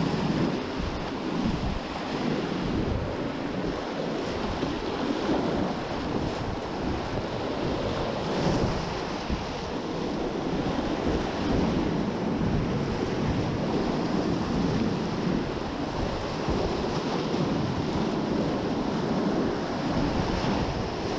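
Whitewater rapids rushing and splashing around a kayak in a steady, unbroken roar, with wind noise on the microphone.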